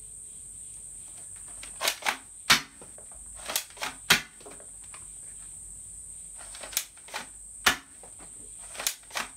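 Toy Remington 870 pump-action gel ball blaster being worked and fired: sharp plastic clacks and snaps in four groups of two or three. These are first shots from the brand-new, unlubricated barrel, which the owner says makes the gel balls burst instead of firing cleanly.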